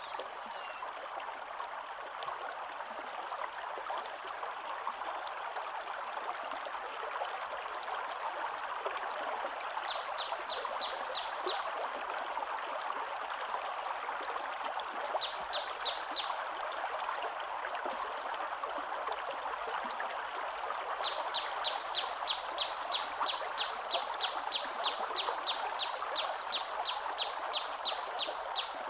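Steady rushing of river water, like a stream running over rapids. A rapid series of high chirps, about four a second, comes in briefly twice and then keeps up through the last third.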